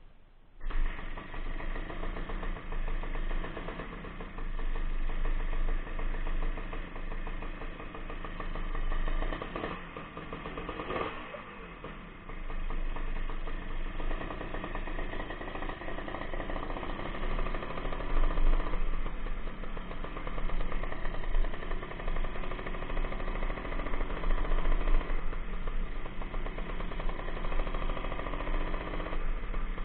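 Suzuki Satria two-stroke single-cylinder motorcycle engine, running with its air-filter box removed: it starts about half a second in, idles with a rise and fall in revs around ten seconds in, then pulls away and runs under load as the bike is ridden.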